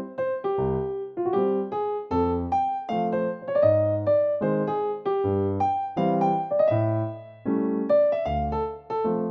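Background piano music: a gentle melody of separate notes over low bass notes at a moderate, even pace.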